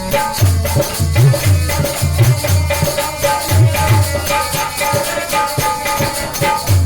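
Instrumental interlude of a Bundeli devotional song (bhajan): a fast, steady shaker-like rattle and heavy low drum beats over long held notes.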